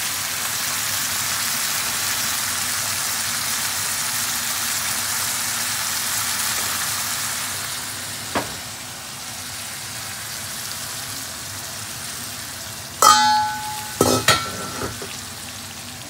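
Food sizzling in hot oil in a pan, a steady hiss that softens about halfway through. A sharp knock about eight seconds in, and a few loud ringing knocks near the end.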